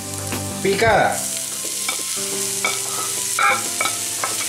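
Chopped onion scraped off a plate with a plastic spatula into hot olive oil with garlic; the oil sizzles, a steady hiss that grows louder about a second in as the onion goes in, with short taps of the spatula against the plate and pan.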